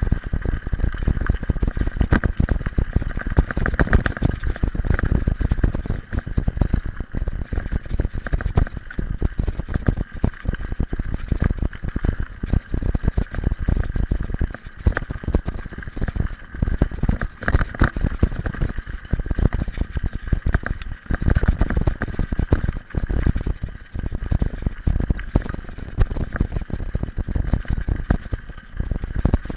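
Mountain bike riding over a loose gravel road: tyres crunching on the stones and the bike rattling over the bumps, a continuous rumble full of small knocks.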